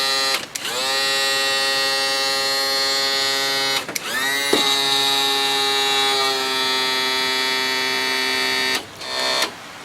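Electric tilt and trim pump motor of a 1992 Johnson 60 hp outboard running in short jogs, a steady whine that rises in pitch as it spins up each time; it cuts out briefly about half a second in and again about four seconds in, then stops near the end. The trim is being cycled to purge air from the freshly installed pump.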